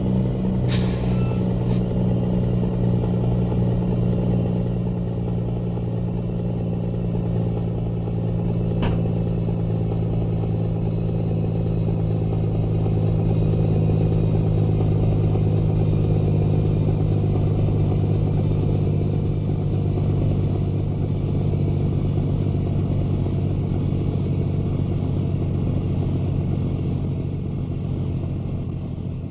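Truck engine running steadily, a low, even drone, with a single sharp click about a second in.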